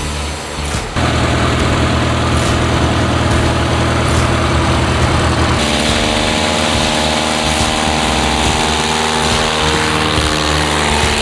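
CubCrafters Carbon Cub's piston engine and propeller running as the plane rolls on a sandbar. The sound starts abruptly about a second in and changes in pitch about five and a half seconds in.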